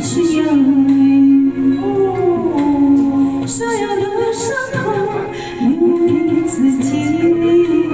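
A woman singing a Chinese pop song into a microphone over a karaoke backing track.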